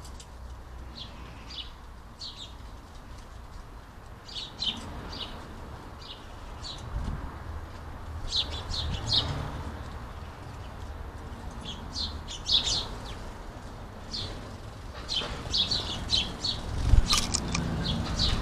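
House sparrows chirping, many short high chirps coming in quick clusters from several birds at once. A few low thuds break in, the loudest about seventeen seconds in.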